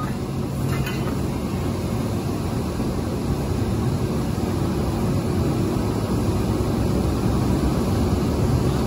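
Excavator diesel engines running steadily with a low, even rumble, growing a little louder toward the end.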